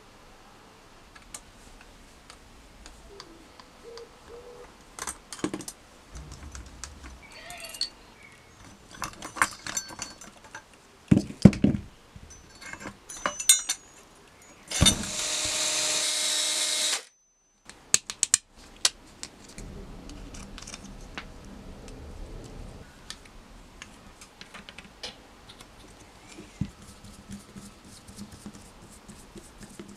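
Small metal parts of an RC truck chassis being handled and fitted: scattered clicks, taps and light metallic clinks of tube, threaded rod, chassis rails and a servo mount. About halfway through, a louder steady noise runs for about two seconds and cuts off suddenly.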